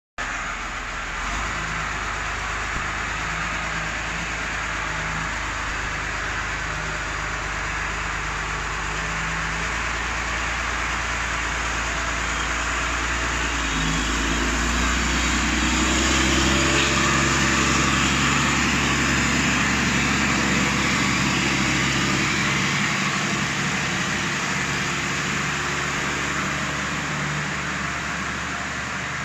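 Belarus MTZ 1221.3 tractor's diesel engine running steadily under load as it pulls a reversible plough through the soil, growing louder as the tractor comes close past the middle and easing off as it moves away. The engine's injection pump has been turned up to give about 160 hp.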